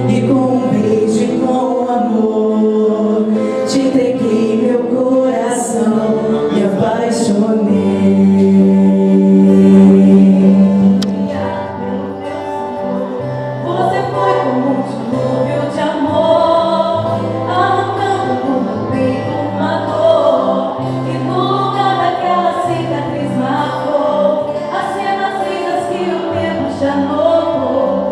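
A vocal group singing together over held bass notes that shift every second or two, in a slow, church-style song.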